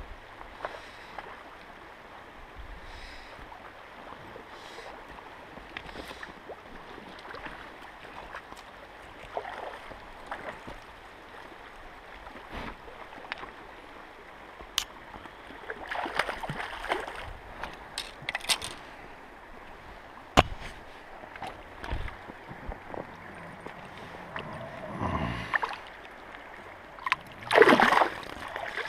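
Steady rush of river current with scattered small splashes and knocks. Near the end comes a loud burst of splashing at the water's surface in the shallows.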